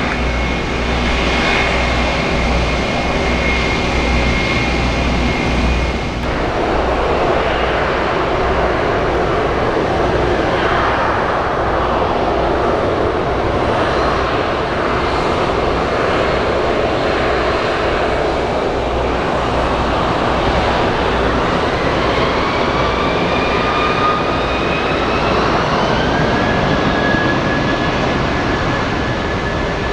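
Jet airliner engines running loud and steady. The sound changes abruptly about six seconds in. From past the middle, an engine whine climbs steadily in pitch for several seconds and then holds high, as the engines spool up.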